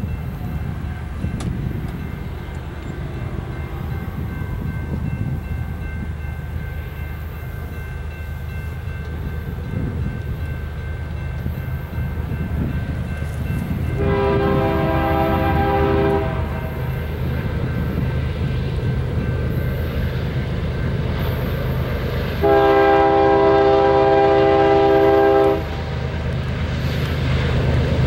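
Approaching coal train's lead GE ES44AC diesel locomotive with a steady low engine rumble that grows louder near the end. Its air horn sounds two blasts of a multi-note chord for the level crossing, a shorter one about halfway through and a longer one of about three seconds later on.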